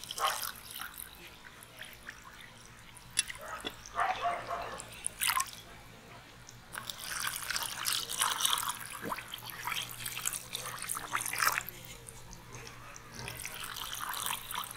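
Water poured in a thin stream from an aluminium pot into glass bowls of sugar and drink powder, splashing and trickling in a few spells with short pauses. A few light knocks come in the first half.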